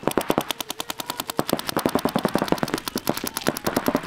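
Paintball markers firing rapid strings of shots, about a dozen a second, without a break.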